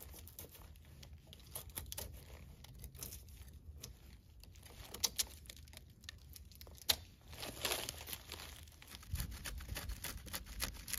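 Dry birch bark being scraped and peeled from a birch trunk with a knife: crinkling, tearing and crackling, with scattered sharp clicks.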